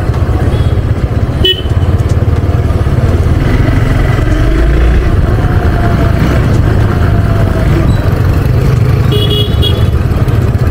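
Hero Xpulse 200 motorcycle running at riding speed, with wind rumbling on the microphone. A vehicle horn toots briefly about a second and a half in, and again for about half a second near the end.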